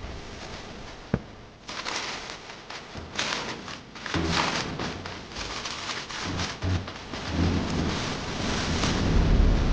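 Packaging being handled and opened: irregular crinkling and rustling starts about a second and a half in, with a sharp knock just before it and a few dull thuds later on.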